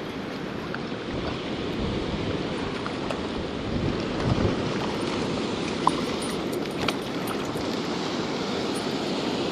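Spillway water rushing steadily, with wind buffeting the microphone and a few faint clicks.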